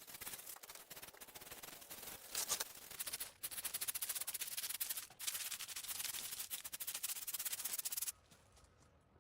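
Rough, rasping scraping in long continuous strokes, with brief breaks about three and five seconds in, stopping abruptly near the end.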